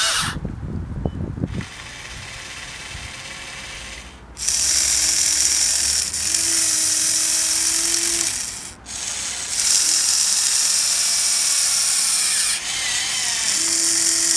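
Electric motors and gearing of a Huina 580 radio-controlled excavator whining as the arm and ripper move, in three or four runs of a few seconds each with short breaks between them. A short crackling noise comes right at the start.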